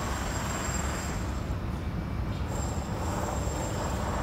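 Steady low rumble of vehicle noise.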